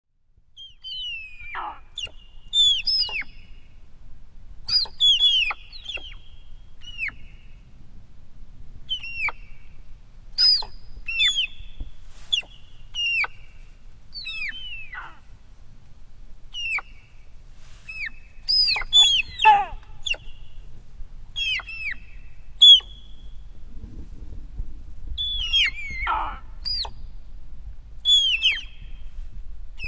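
Dybowski's sika deer hinds calling: many short, high, squeaky calls, each dropping sharply in pitch, given every second or two by several animals, sometimes overlapping, over a low steady rumble.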